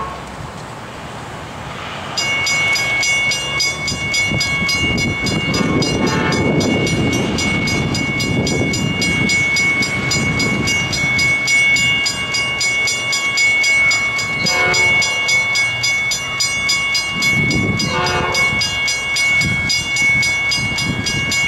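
Grade-crossing warning bell ringing in a fast, even rhythm from about two seconds in, over the rumble of an approaching Metra F40PH diesel locomotive and its train, which grows louder as it nears.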